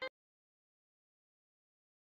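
Dead silence, after the last instant of the intro music cuts off abruptly right at the start.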